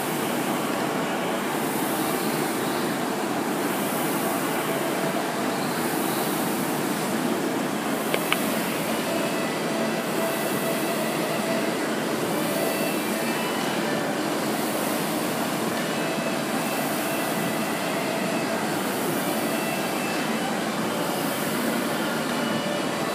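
Air rowing machine's fan flywheel whooshing with each stroke, about one stroke every one and a half seconds. A single sharp click about eight seconds in.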